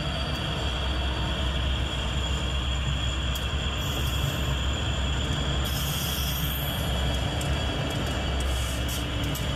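HO-scale model train running on its track, a steady mechanical running noise with a low hum underneath and a thin high whine throughout.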